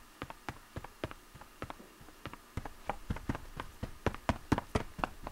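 A quick run of light taps and clicks, about three a second at first, then faster and louder from about halfway through.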